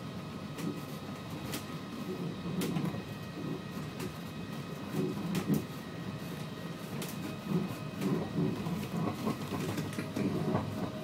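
Heathrow Pod, a small battery-electric driverless pod on rubber tyres, running along its guideway: a steady rumble with a faint steady hum in several tones, and scattered clicks and rattles.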